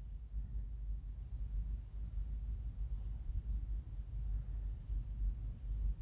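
A steady, high-pitched, finely pulsing trill runs throughout over a low background rumble. No distinct handling clicks stand out.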